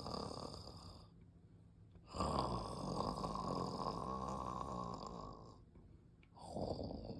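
Shiba Inu dog snoring in its sleep: long snores of about three seconds each, with quiet pauses of about a second between them. One snore ends about a second in, a second runs from about two to five and a half seconds in, and a third begins near the end.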